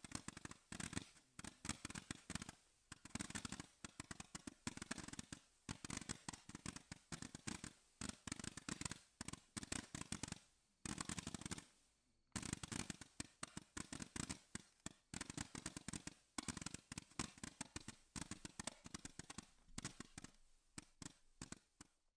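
Nico 'Northern Lights' 300-shot, 8 mm, noise-reduced fireworks battery firing, a fast dense string of small pops. There is a short break about twelve seconds in, and the firing thins out near the end.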